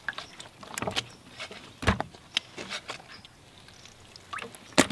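Crappie being moved by hand from a bucket into a plastic cooler: scattered wet slaps and knocks of fish against fish and the cooler's plastic, with louder knocks about two seconds in and again near the end.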